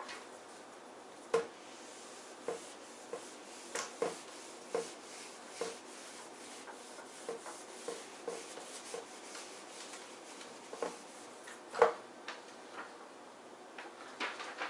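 Handheld whiteboard eraser wiping marker off a whiteboard: a string of short, irregular rubbing strokes, the loudest about twelve seconds in.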